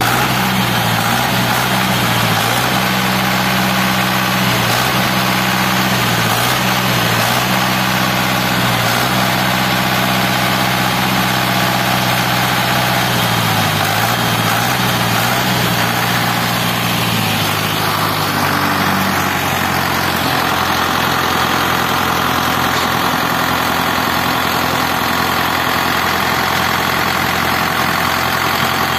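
Kirloskar diesel engine on a tractor running at idle, its beat wavering unevenly at first and settling to a steadier, smoother idle about eighteen seconds in.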